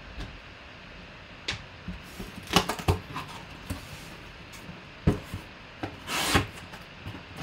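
Cardboard shipping box being handled and opened: scattered scrapes, rustles and knocks of the cardboard flaps and packing tape. There is a cluster of them about two and a half seconds in, and a longer rasp around six seconds.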